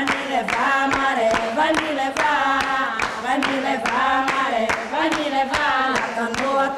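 Voices singing a song unaccompanied to steady rhythmic hand clapping, about three claps a second.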